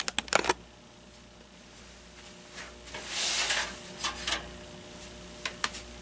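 Handling noise: scattered light clicks and knocks, with a brief scraping rustle about three seconds in, as the fan's power cord and plug are gathered up by hand.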